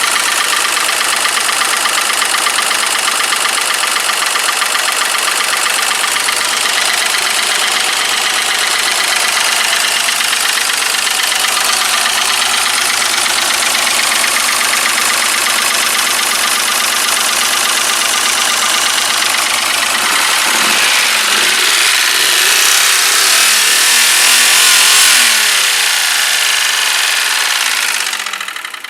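Mercedes M110 straight-six engine in a W126 idling with a knock. The owner says the third cylinder is not firing and oil is getting into it. About two-thirds of the way in the engine speed starts to waver up and down, and near the end it dies away as the engine stalls.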